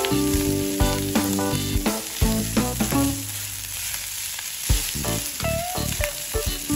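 Fried rice sizzling in a non-stick frying pan as a spatula stirs and scrapes it around the pan, with light background music over it.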